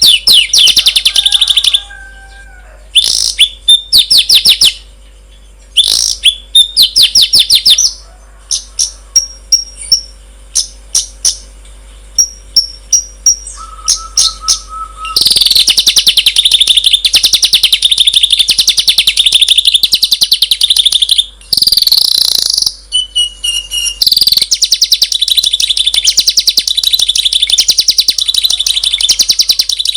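Songbird song: bursts of rapid, harsh chattering trills and quick repeated chips, a short steady whistle about halfway, then a long unbroken run of fast chatter to the end.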